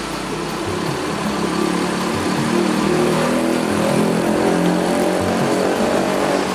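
Diesel engine of a Mercedes-Benz OH 1626 bus running as the bus pulls away, growing louder from about a second and a half in.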